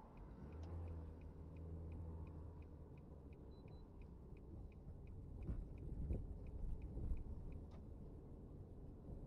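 Car turn signal ticking steadily, about three ticks a second, during a turn, over a low hum of engine and road heard from inside the cabin. A few dull bumps come about six to seven seconds in, and the ticking stops near the end as the signal cancels.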